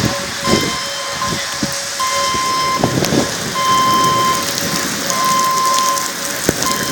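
Steady rain falling, with a few brief low thumps in the first half. An electronic tone beeps on and off throughout, each beep lasting a fraction of a second to about a second.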